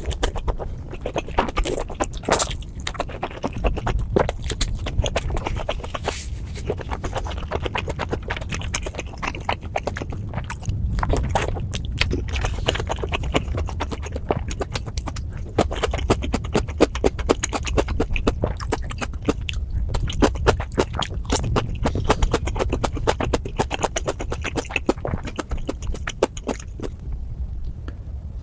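Close-miked chewing of steamed momos, with a dense run of mouth clicks and smacks throughout over a steady low rumble.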